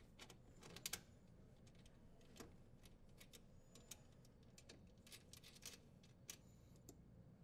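Faint, scattered small clicks and ticks as a metal strain relief locknut is turned by hand onto its threaded connector at a dishwasher's junction box.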